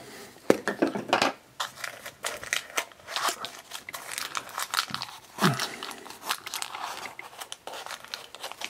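Hands opening a plastic blind-pack toy container: crinkling plastic wrapping with irregular clicks and crackles of hard plastic.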